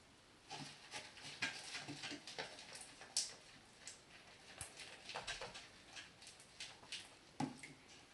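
Thickening slime mixture being stirred as activator is added, making many small irregular wet clicks and squelches.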